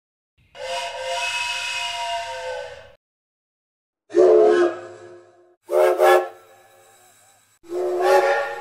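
A wooden toy train whistle blown once, a steady chord of several notes lasting about two and a half seconds. Then a steam locomotive's whistle sounds three lower blasts, each dying away, the last running on at the end.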